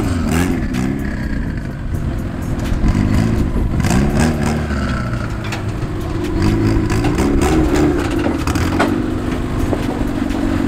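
Car engine revving up and down in repeated surges, with scrapes and clicks, as a lowered stance car is inched up onto a trailer.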